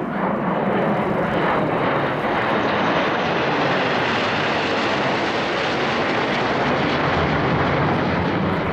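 Two Sukhoi Su-22M4 fighter-bombers flying past in close formation, their Lyulka AL-21F-3 turbojets making a loud, steady jet noise. The higher hiss in the noise fades somewhat through the middle of the pass.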